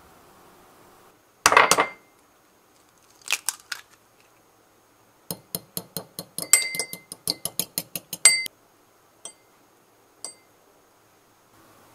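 A metal fork beating egg in a ceramic bowl, its tines clinking against the bowl with a ringing tone, about six strokes a second for some three seconds, then two single clinks. A sharp knock comes about a second and a half in, with a few lighter clicks after it.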